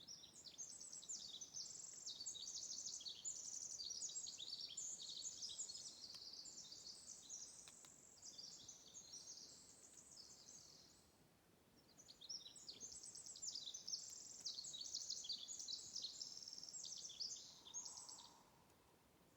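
A songbird singing two long, rapid, high-pitched songs of tumbling trills and twitters: the first lasts about eleven seconds, and the second follows after a short pause and lasts about six.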